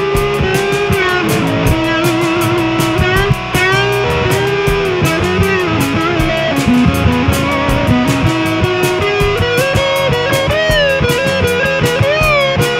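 Rock music: an electric guitar plays a lead melody, bending and wavering in pitch, over a steady drum beat and bass.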